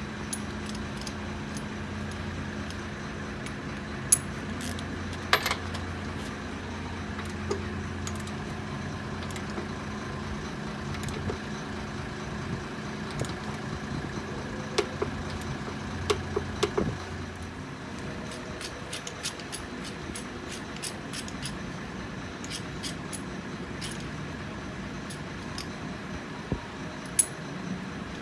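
Scattered metallic clicks and clinks of hand tools, a ratchet and torque wrench working on a motorcycle's front axle fasteners. They come over a steady low hum that stops about two-thirds of the way in.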